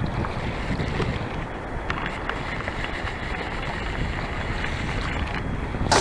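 Steady wind buffeting the microphone over open sea, with choppy water lapping and a few faint drips and splashes.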